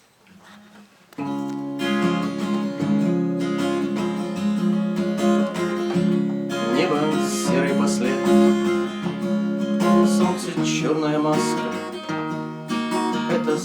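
Acoustic guitar strummed in steady chords, coming in suddenly about a second in: the instrumental intro of a song.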